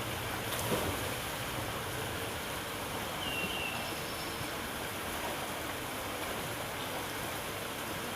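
Steady rushing of running water. A short, faint high chirp comes about three seconds in.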